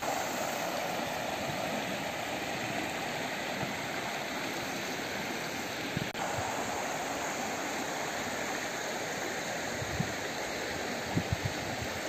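Steady rush of a shallow river running over rocks, breaking off for a moment about six seconds in.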